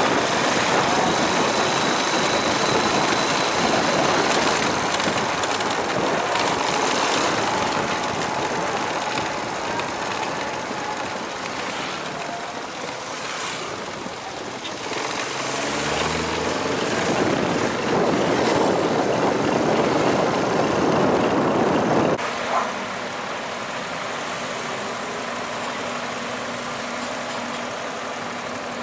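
Vehicle engines and road noise. About halfway through an engine pitch glides up and down, and about three quarters of the way in the level drops suddenly to a steadier, quieter engine hum.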